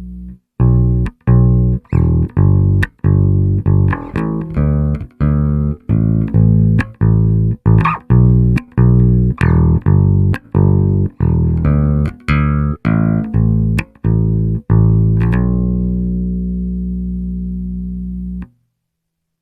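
Cort GB64JJ electric bass played dry with no effects: a line of plucked notes, about two a second, each cut short, then a last note held for about three seconds and muted abruptly.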